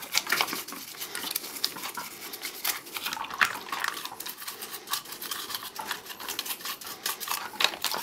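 Toothbrush scrubbing wet grey plastic parts of a Dyson V6 vacuum cleaner in soapy water: quick, irregular scratchy brush strokes with small clicks.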